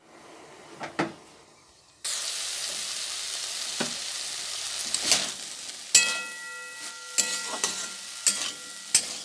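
Cauliflower and potato pieces frying in oil in a wok: a steady sizzle that starts suddenly about two seconds in, with the metal spatula scraping and knocking against the pan several times. After one knock a ringing tone hangs on for about three seconds. Before the sizzle there is a quieter stretch with a single knock.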